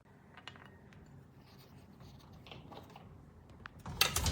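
Faint scratching and rustling, then a short clatter of knocks near the end.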